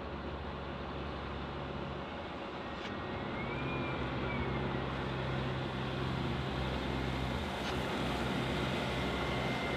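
Heavy military vehicle engine running steadily with a deep hum, growing a little louder about three seconds in, with a faint short whine and a couple of light clicks.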